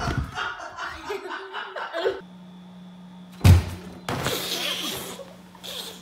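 A person laughing, then a single loud thump about three and a half seconds in, followed by a second of noisy commotion.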